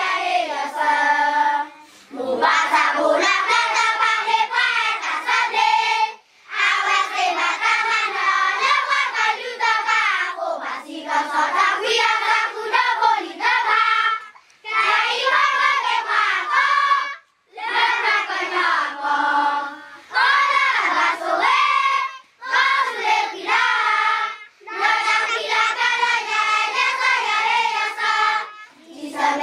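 A large group of children singing together in unison, in sung phrases of a few seconds each separated by short breaks.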